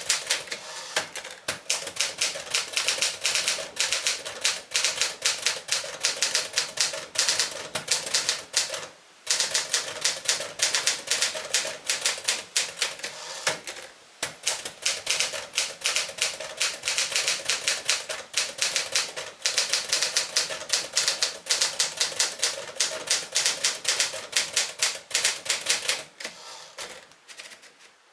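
1964 Smith-Corona Sterling manual portable typewriter being typed on: a fast, steady run of key strikes, with a short pause about nine seconds in and the typing trailing off near the end.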